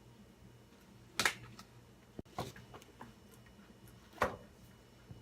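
A few light clinks and knocks of kitchen utensils and containers, three sharper ones spread about a second apart, as ingredients are added to a bowl.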